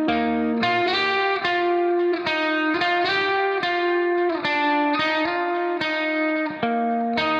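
Instrumental background music: a guitar plays sustained chords and notes that change in a steady rhythm.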